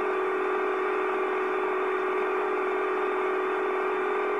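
Locomotive air horn sounding one long, steady blast, a chord of several held tones, as a warning on the approach to a grade crossing.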